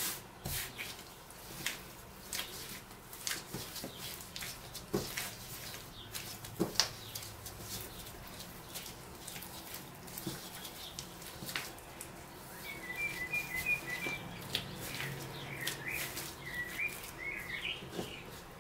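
Bread dough being kneaded by gloved hands on a countertop: irregular soft slaps, taps and knocks of dough and hands against the surface. In the second half a small bird chirps in quick short notes.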